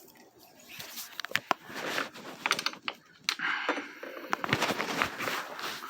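Scattered metal clicks, knocks and scraping of hand tools and bolts being handled while parts are unbolted from a riding lawn mower.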